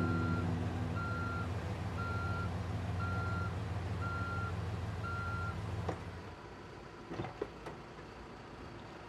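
Volkswagen van ambulance's reversing alarm beeping about once a second over its running engine. Beeps and engine stop about six seconds in, and a few clicks and knocks follow as the driver's door is opened.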